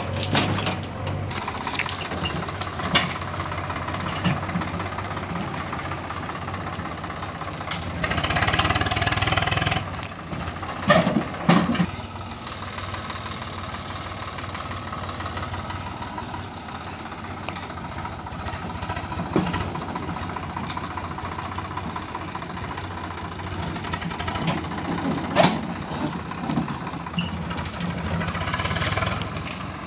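Swaraj 744 FE tractor's three-cylinder diesel engine running steadily while pulling a loaded trailer. About eight seconds in a louder rushing noise lasts roughly two seconds, and a few short sharp knocks stand out, around eleven seconds and again near the end.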